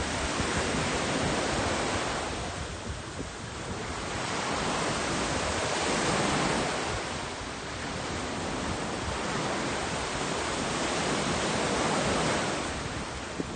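Small sea waves breaking and washing up a sandy beach. The wash swells and fades about every five to six seconds.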